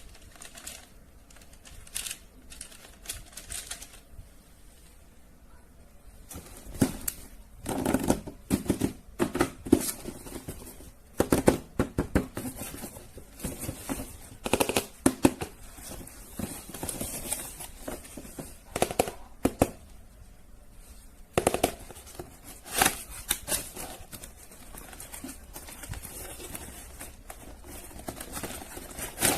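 Handling noises: irregular clicks, taps and rattles, coming in clusters, as toys and their packaging are unboxed and handled.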